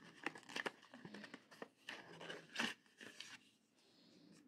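White paper and cardboard tablet packaging being handled: a string of short rustles, scrapes and light taps over the first three seconds or so, then quieter.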